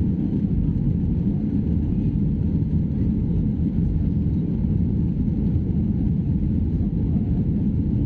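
Steady low rumble of a Boeing 737 airliner's jet engines and rushing air, heard inside the passenger cabin.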